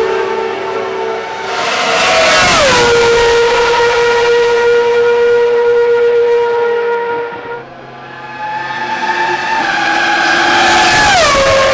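Ferrari Formula One car engines at full throttle: a high, steady, many-toned wail whose pitch drops sharply as a car passes close by, about two and a half seconds in and again near the end. The sound dips and a second engine note takes over about seven and a half seconds in.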